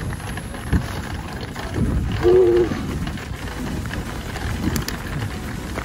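United Dominate 611 mountain bike rolling along a rough dirt and gravel track: a steady low rumble of tyres and riding noise. A short humming note about two seconds in.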